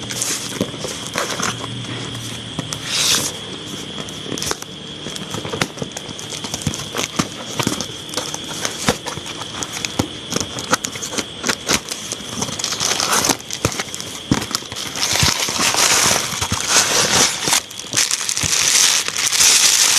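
Packaging crinkling and crackling with many small clicks as a parcel is unwrapped, busier and louder in the last few seconds.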